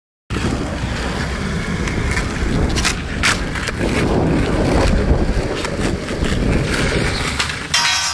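Skateboard wheels rolling over concrete, a loud steady rumble with wind on the camera microphone. A couple of sharp clacks from the board come about three seconds in.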